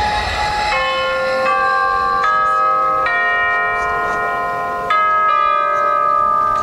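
Marching band playing a held chord that builds up note by note, new notes entering roughly every second, with a fresh attack on a new chord about five seconds in.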